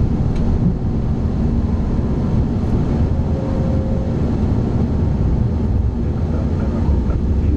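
Steady, loud flight-deck noise of an Airbus A340-300 in its initial climb after takeoff: airflow over the cockpit and its four CFM56 engines at takeoff thrust, mostly low in pitch.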